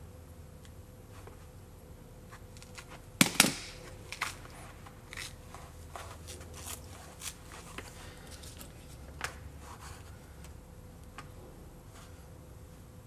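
Plastic hard case and its foam insert being handled: two sharp clicks about three seconds in, then scattered lighter clicks and crackles.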